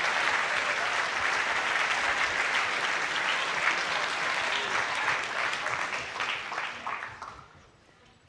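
A large audience in a tiered lecture hall applauding, dense steady clapping that dies away about seven seconds in.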